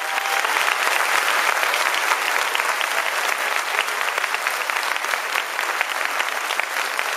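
Large audience applauding, many hands clapping at an even level.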